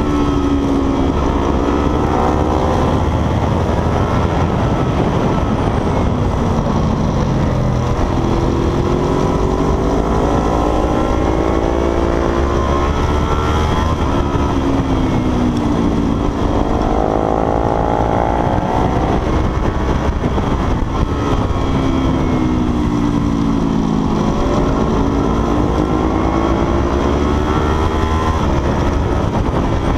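Motorcycle engine under hard riding, its pitch climbing under acceleration and dropping back as the throttle closes, several times over, with heavy wind rush on the microphone.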